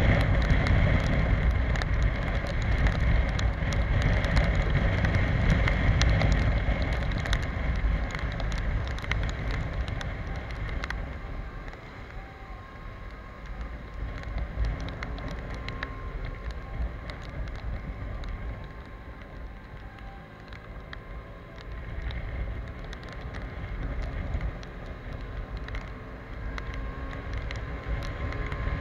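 Riding a Piaggio X Evo 125 scooter on a wet road in rain: wind rushing over the microphone with the hiss of wet tyres and spray, and raindrops ticking on the camera. It gets much quieter about twelve seconds in as the scooter slows through a junction, and a faint engine note rises and falls as it pulls away.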